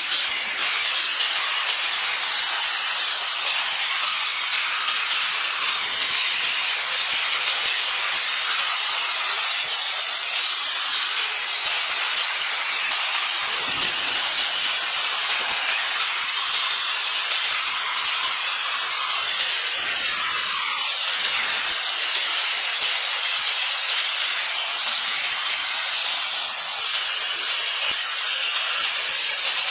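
A steady, unbroken high hiss that keeps the same level throughout.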